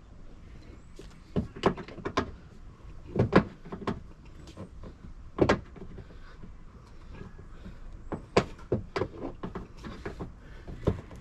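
Irregular clicks, knocks and scrapes of car body parts being worked loose by hand, with a cluster of knocks about three seconds in and another near the end.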